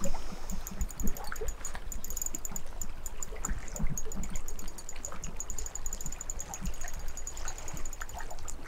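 River water lapping at the bank under a steady low wind rumble, with faint rapid high ticking throughout.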